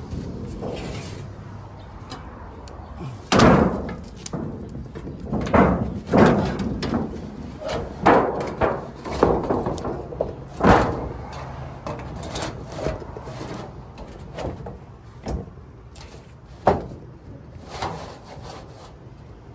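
Sheet of used corrugated tin roofing being handled and shifted into place on a roof, the metal banging in a string of irregular loud knocks.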